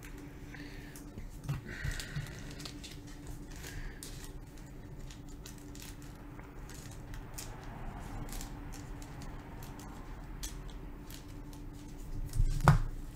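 Gloved hands handling a trading card in a plastic sleeve: scattered small clicks and plastic rubbing over a faint steady hum, with a louder knock near the end.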